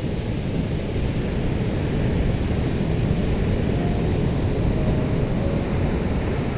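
Ocean surf: a steady rush of breaking waves that swells slightly in the middle.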